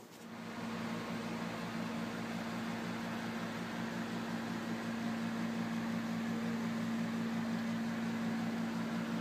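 Steady machine hum with an even whirring hiss, starting just after a faint click at the very beginning and holding level throughout.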